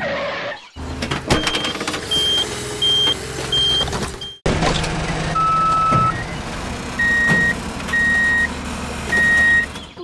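Truck engine running with a reversing beeper sounding repeatedly. There are about five quick high beeps, then a short break, then a lower tone and three slower beeps about a second apart over the continuing engine hum.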